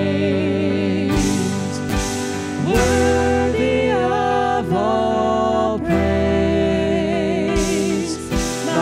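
Contemporary worship song: a singer holds long notes with vibrato over a steady instrumental backing.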